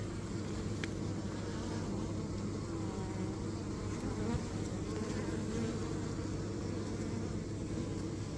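Honeybees buzzing in a steady hum.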